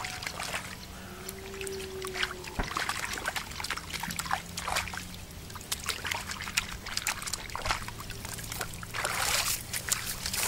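Shallow river water splashing and trickling around hands holding a freshly caught common carp (sazan) in it. The splashes are irregular, with a busier burst of splashing shortly before the fish is lifted out near the end.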